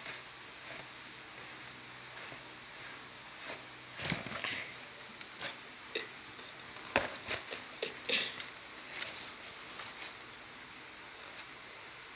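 Cardboard box rustling and scraping in short, irregular bits with light clicks, as a cat moves about inside it and a hand works at the opening. The loudest scrape comes about four seconds in.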